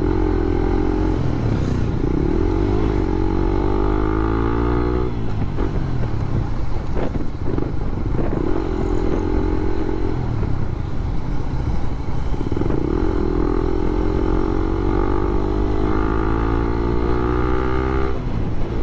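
Suzuki Raider 150 Fi's single-cylinder four-stroke engine pulling under way, its pitch climbing steadily and then falling away abruptly, twice, with a steadier stretch between. Wind rumble runs low underneath.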